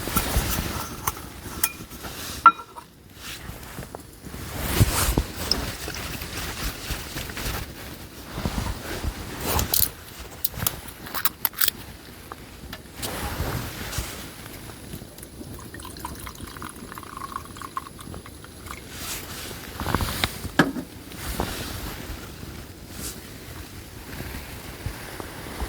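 Liquid pouring and dripping, broken by scattered clinks and knocks of things being handled.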